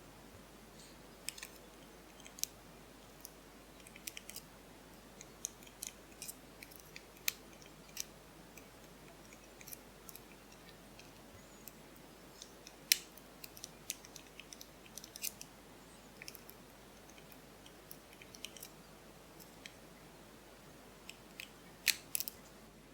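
Lock pick and tension wrench working the pins of a Soviet high-security pin cylinder lock. Faint, irregular small metallic clicks and ticks, a few sharper ones, the loudest near the end.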